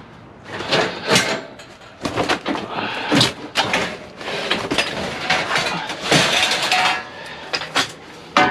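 Scrap steel clattering and scraping as pieces are pulled out and dropped onto a pile, many metal knocks and clanks in quick succession with some ringing.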